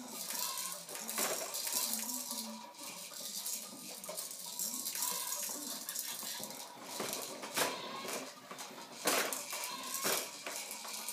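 Fisher-Price Rainforest Jumperoo bouncer in use: its electronic toy tune plays while the plastic toys and tray rattle and clatter, with several sharp knocks as the baby bounces.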